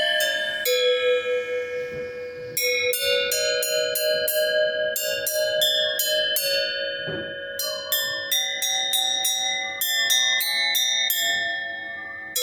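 Ringtone melody played on bells: quick runs of struck notes that ring on, with a long ringing note about a second in before the runs start.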